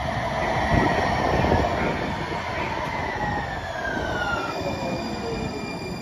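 UTA TRAX light rail train pulling into the platform, its wheels rumbling on the rails. A whine falls steadily in pitch as it slows. It is loudest about a second in as it draws alongside.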